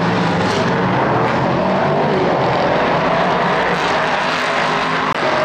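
Engines of a pack of three prototype race cars running at speed through a corner, several engine notes overlapping and rising and falling as they accelerate and lift.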